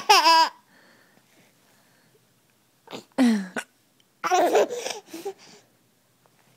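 A woman's sudden hiccup at the very start, answered at once by a baby's short, wavering squeal of laughter. More laughter follows about three seconds in and again in a run of breathy bursts from about four to five and a half seconds.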